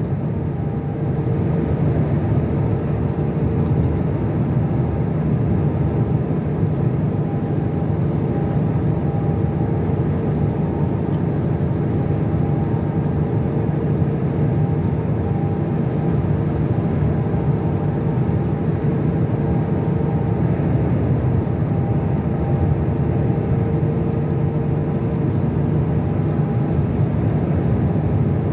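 Steady low rumble of tyres and engine from a car cruising at motorway speed, heard from inside the car, with a faint steady hum over it.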